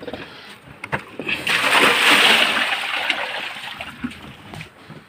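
Cows eating wet feed mash from a trough, with slurping and splashing in the watery mix. It is loudest about two seconds in, after a few short clicks.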